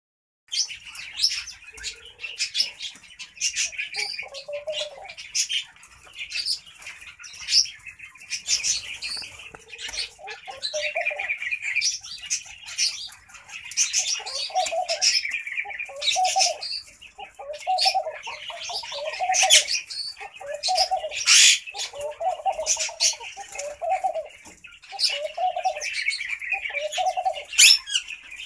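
Laughing dove cooing: short groups of soft low notes, scattered at first and then coming about once a second through the second half. Small birds chirp and twitter at a higher pitch throughout, with one loud sharp call about two-thirds of the way through.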